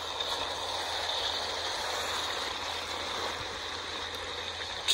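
Beef stew cooking in a cast iron Dutch oven over a wood fire: a steady hiss of the simmering pot and the fire's coals.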